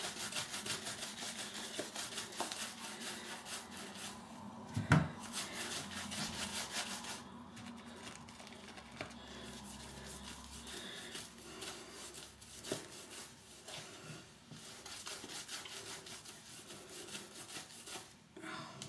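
Shaving brush scrubbing soap lather onto a bare wet leg in quick, continuous strokes, with one sharper knock about five seconds in.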